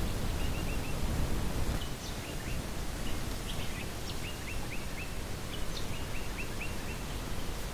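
Small unseen birds calling in bushland: several quick runs of three to five short chirps, with a few higher rising notes between them. A steady low background noise runs underneath.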